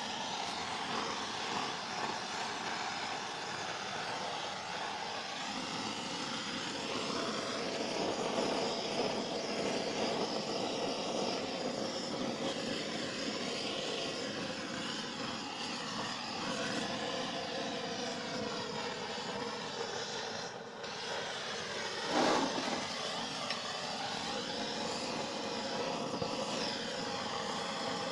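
Gas blowtorch burning steadily with a continuous hiss, its flame played over the inside of a wooden beehive box to scorch and clean it before bees are installed. A brief bump is heard about two-thirds of the way through.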